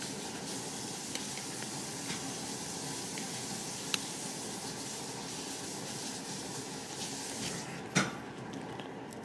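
Boston terrier puppy gnawing on a chew bone: a steady scraping of teeth on the chew with a few small clicks, and one sharp click about eight seconds in.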